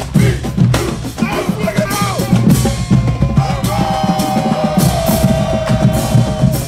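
Marching band drumline playing a driving cadence, with rapid bass-drum and snare strokes. Some held notes sound over the drums in the second half.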